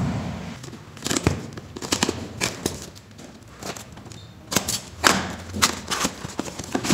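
Scissors cutting through a taped cardboard shipping box and the cardboard flaps being pulled open: a string of irregular snips, crackles and scrapes.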